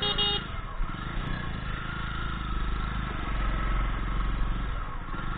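Motorcycle engine running steadily under way in traffic, heard from on the bike with wind and road noise, growing a little louder in the middle. A short beep sounds at the very start.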